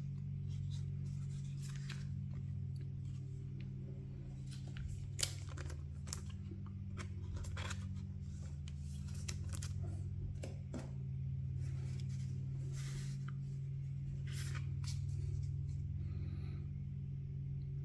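Clear plastic card sleeve crinkling and rustling as a foil trading card is slid into it: scattered short crackles and clicks over a steady low hum.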